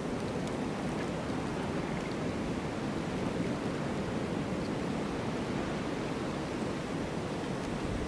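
Strong blizzard wind blowing steadily, a dense even rush without distinct gusts.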